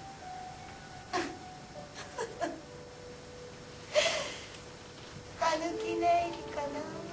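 A woman whimpering and sobbing, with sharp breaths catching between cries, the loudest gasp about halfway through. Soft music with held notes plays underneath and grows near the end.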